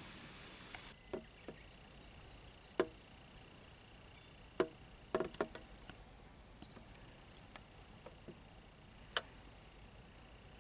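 A few sharp, irregular clicks and taps of small hard objects: a quick cluster of them about halfway through and a single louder click near the end. Behind them is a faint steady hiss with a thin high tone.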